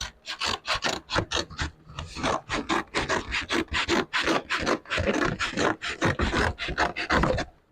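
Rapid back-and-forth rasping strokes of a hand tool worked over metal, about four to five strokes a second, stopping shortly before the end.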